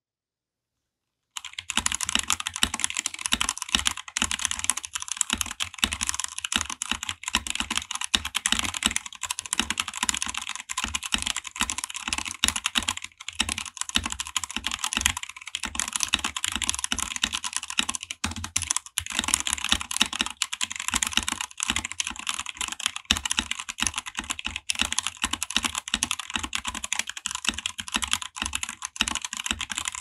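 Kemove Snowfox DK61 mechanical keyboard being typed on quickly and without pause, a dense stream of keystrokes that starts about a second in.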